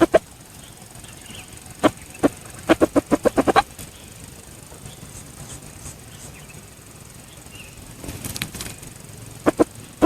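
Red junglefowl giving short sharp clucks: two single ones, then a fast run of about seven, and two more near the end. A brief rustle of wing flapping comes shortly before the last clucks.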